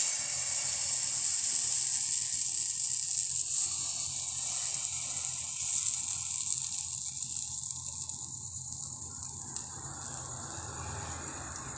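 Dosa batter sizzling on a hot tawa as it is poured and spread in circles with a ladle. The hiss is loudest at first and slowly fades.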